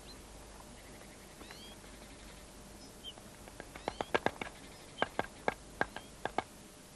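Great spotted woodpecker pecking at a branch: about a dozen sharp, irregular taps from about halfway through, as it chisels a hole to reach a beetle larva. A few faint high chirps near the start.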